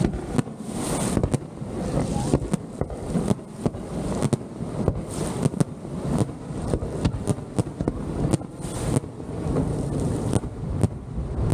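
Fireworks display going off: rapid, irregular bangs and cracks, several a second, over a continuous low rumble, with wind on the microphone.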